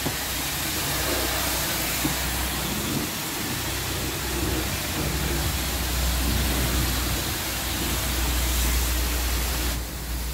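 High-pressure water spray from a car-wash lance hissing steadily against a car's bodywork, with a low steady rumble underneath. The hiss thins briefly near the end.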